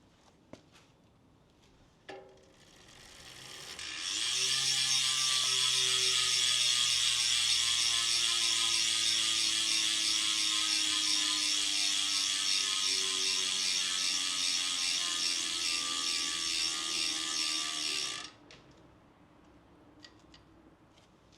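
Loud ratchet buzz of the freehub on a Canyon Ultimate CF SL 8's DT Swiss carbon rear wheel as the wheel freewheels. It builds up over a couple of seconds, its clicking pitch slowly falls as the wheel slows, then it stops suddenly near the end.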